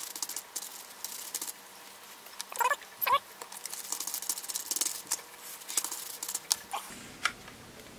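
Paper towel scrubbing across a circuit board, wiping off solvent-loosened solder flux, in a run of short, irregular scratchy rubs, two of them louder a few seconds in.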